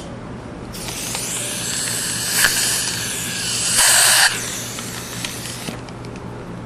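Dental equipment hissing, a spray or suction stream running for about five seconds with a louder burst about four seconds in, over a steady low hum.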